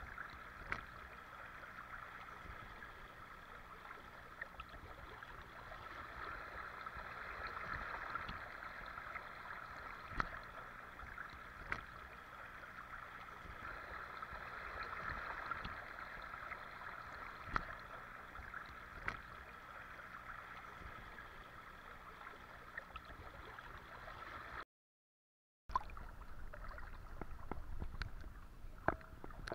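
Muddy water sloshing and swirling as a person wades neck-deep through it, pushing a wave ahead, with small splashes and clicks scattered through. The sound cuts out completely for about a second near the end.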